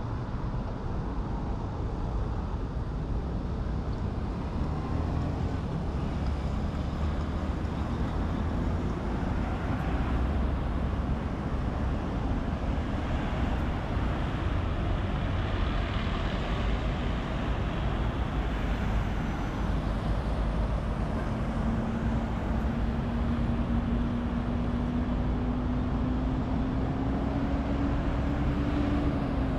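City street traffic: a steady rumble of passing cars and buses. Over the last ten seconds a hum slowly rises in pitch, then dips at the very end.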